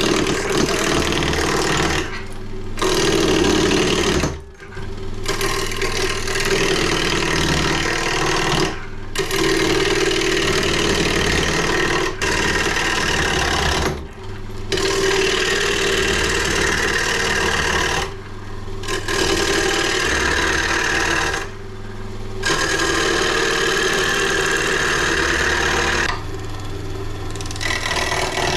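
Wood lathe spinning a rough firewood log while a roughing gouge cuts it down: a loud, steady rough cutting noise over the lathe's motor hum, broken by several brief breaks.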